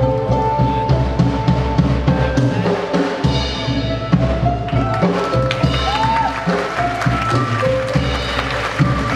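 Music with a steady drum-kit beat under a melody line.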